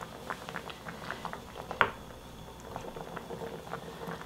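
Rice-water broth simmering in a pot with mackerel and radish, bubbling with many small irregular pops. A single sharper click about two seconds in.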